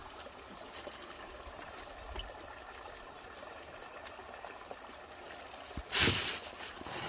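Fish being handled in a plastic basket: faint taps and rustles over a steady low hiss, then one short, loud burst of noise about six seconds in.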